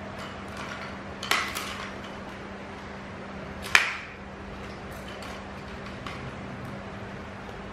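A small hard plastic toy clattering on a tile floor as a cat bats at it: two sharp knocks about two and a half seconds apart, the second the louder, then a few light taps.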